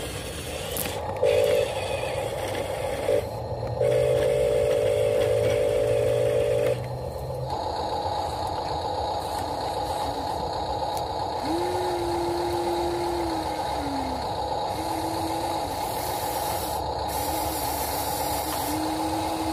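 Small electric motors of RC construction models. First a Huina RC dump truck, with two short tones and a longer buzzy tone in the first seven seconds. Then a Huina RC excavator: a steady hum with motor whines that rise, hold and fall as its boom and arm move.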